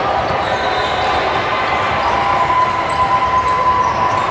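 A basketball being dribbled on a court during a game, over a steady din of players and spectators.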